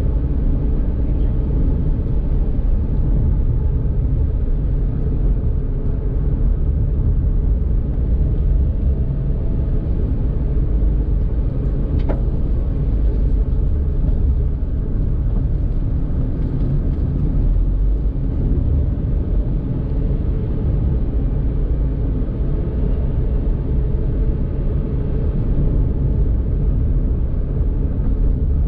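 Daihatsu Mira Tocot kei car, with its 660 cc three-cylinder engine, driving along at a steady pace: an even low engine and road rumble. There is one faint tick about twelve seconds in.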